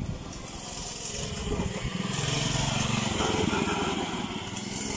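Small single-cylinder Lifan 6.5 hp four-stroke engine of a Draxter off-road mini-bike running under way, the engine note swelling and rising a little about halfway through.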